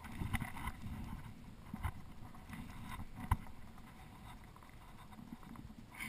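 Water lapping and slapping against a plastic fishing kayak's hull, with a few irregular sharp knocks; the loudest knock comes about three seconds in.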